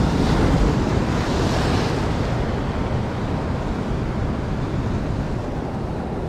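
Ocean surf breaking and washing over the rocks of a jetty, mixed with wind buffeting the microphone. It is loudest in the first couple of seconds, then eases a little.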